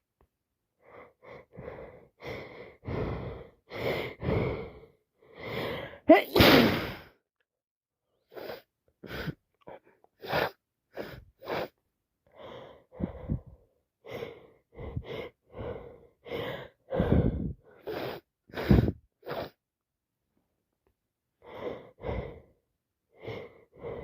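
A woman in an allergy sneezing fit: sneeze after sneeze with quick gasping in-breaths between them, the loudest about six seconds in, and a short pause near the end.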